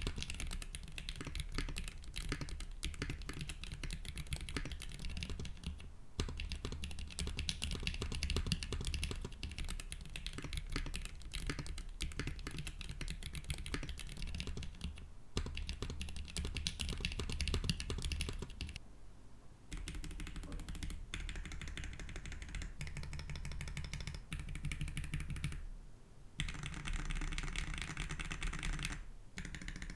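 Continuous typing on an OC-62 mechanical keyboard in a switch sound test: a dense stream of key clacks, pausing briefly a few times.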